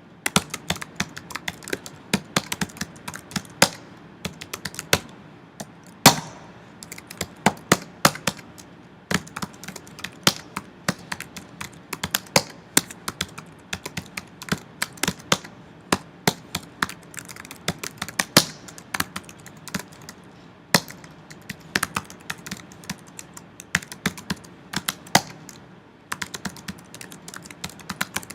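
Typing on a computer keyboard: irregular runs of key clicks, several a second, with short pauses between bursts, over a faint low hum.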